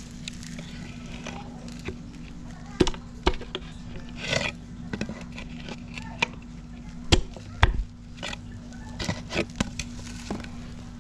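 A series of sharp knocks and clinks, about eight of them spread irregularly, over a steady low hum: the kind of sounds made by handling parts and tools during engine work.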